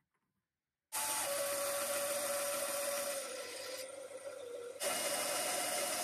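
Benchtop bandsaw running and cutting through a hardwood block, a steady whine over the noise of the blade in the wood. It comes in abruptly about a second in, and the whine sags slightly before picking up again shortly before five seconds.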